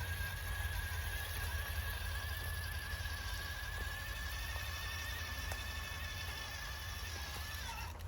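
RC crawler truck's electric motor and drivetrain whining steadily at crawling speed, the pitch wavering slightly and falling away as it slows to a stop near the end.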